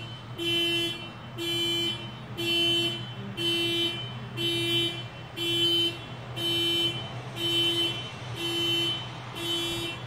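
Parked car's alarm going off, honking in steady-pitched, evenly spaced blasts about once a second, each about half a second long.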